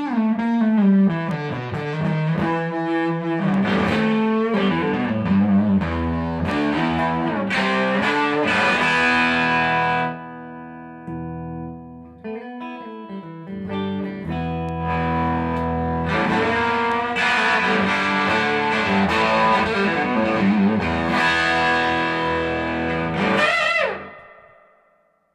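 1970 Gibson Les Paul Custom electric guitar played through a 1966 Fender Pro Reverb tube amp with no pedals: quick single-note lead runs and chords, a quieter held note about ten seconds in, and a final chord that dies away near the end.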